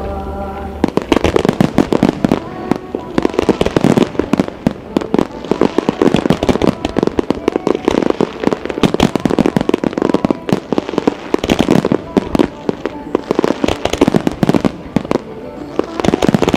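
Starmine fireworks barrage: many aerial shells bursting in rapid succession, a dense run of bangs and crackles several times a second. Music cuts off just under a second in.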